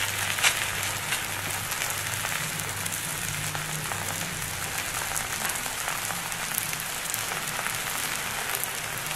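Raw lachha paratha dough sizzling in ghee on a hot iron tawa: a steady, even hiss with a faint low hum beneath it.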